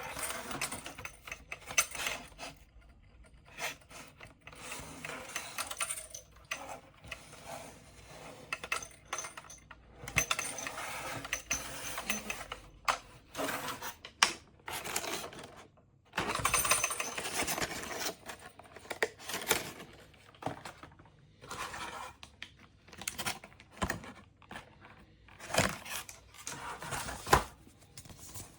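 Small hard plastic and metal parts clinking and clattering irregularly, with scraping and rustling: a marble-powered novelty alarm clock and its packaging being handled.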